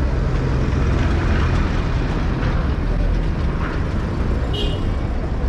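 Street traffic noise dominated by a steady low engine rumble from motor vehicles close by, with a brief high-pitched squeak near the end.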